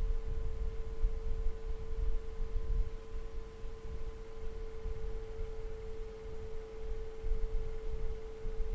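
A steady hum: one held pitch in the middle range with a fainter higher one above it, over a low, uneven rumble.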